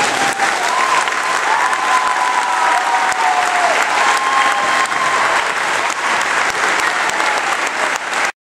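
Audience clapping and applauding after a dance performance, with a few long high calls from the crowd over the clapping; the sound cuts off abruptly near the end.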